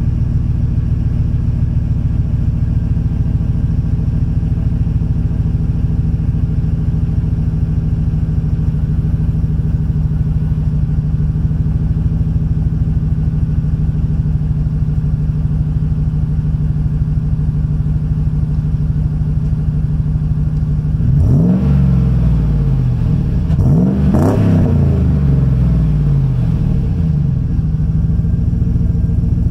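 2010 Chevrolet Silverado's 5.3-litre V8 idling steadily after a cold start, exhaust through a stainless MagnaFlow muffler with one of its three catalytic converters removed for extra rumble. About 21 seconds in it is revved twice in quick succession, the pitch rising and falling each time, then it settles back to idle.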